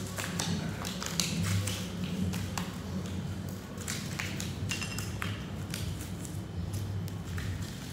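Scattered light taps and clicks of money being handled and sorted by hand, over a steady low hum.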